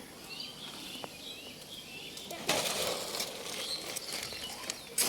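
Small birds chirping faintly in the background, with a brief rustling rush about two and a half seconds in and a sharp click near the end.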